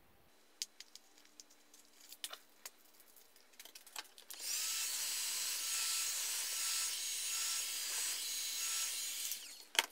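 A small handheld power tool runs for about five seconds, grinding against the steel armature shaft. Before it starts there are a few light clicks and knocks of parts being handled.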